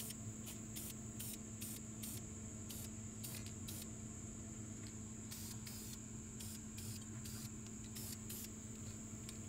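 Short, irregular brush strokes against a metal brake caliper, roughly one or two a second, over a steady faint hiss and low hum.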